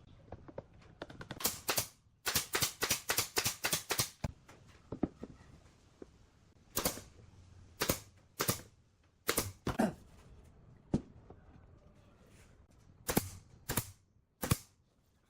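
Sharp knocks on wood during a furniture build. A quick run of about ten strikes comes in the first four seconds, followed by single strikes every second or so.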